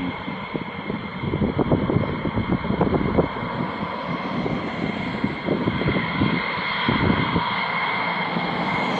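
Road traffic passing close by, with an uneven low rumble of wind buffeting the microphone. Under it runs a steady high whine from the F-16 jet engines running on the airfield.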